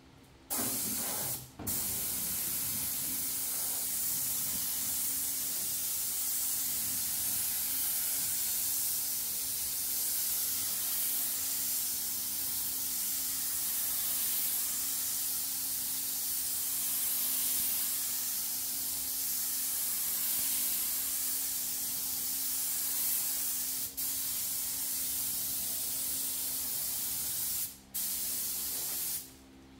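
Air-fed gravity-cup spray gun hissing steadily as it sprays. The hiss starts about half a second in and breaks off briefly where the trigger is released: once about a second and a half in, and twice near the end.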